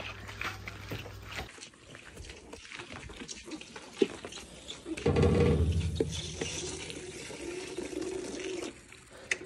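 A calf sucking milk from a hand-held bottle with a rubber teat, a wet slurping and gurgling that starts loud about five seconds in and fades away. It is preceded by a single sharp knock.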